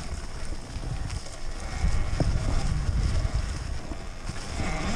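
Wind buffeting the microphone, with the rumble of a nearly silent Talaria Sting MX4 electric dirt bike rolling slowly over leaf-covered dirt single track. There is a single knock about two seconds in.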